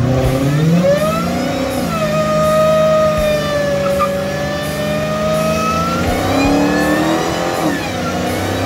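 Dodge Challenger's supercharged V8 revving up and holding high revs, the pitch rising at the start, staying steady through the middle and swinging again later, as the rear tyres spin into a smoky burnout near the end.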